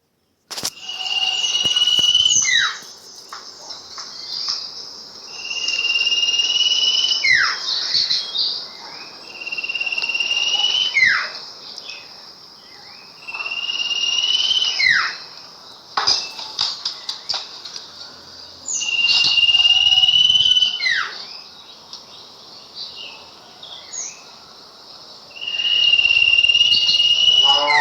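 Sirpu birdsong recording: a phrase repeated about every six seconds, each a long held high whistle with a buzzy edge, broken by quick notes sliding steeply downward. It is a lure song played to train caged sirpu.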